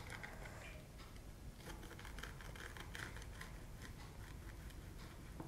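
Faint crackling and small clicks of a pizza cutter wheel cutting through a crisp semolina pizza base on a wooden chopping board, busiest around the middle.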